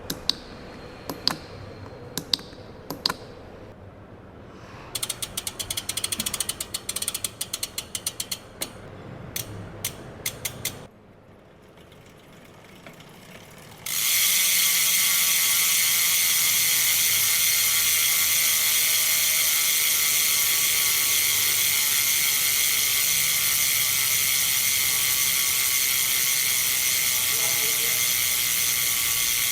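Rear freehub of a VOSO road-bike wheel ratcheting as the wheel freewheels: scattered single clicks at first, then a run of rapid clicking, and from about halfway through a loud, steady buzz of pawl clicks blurred together as the wheel spins fast.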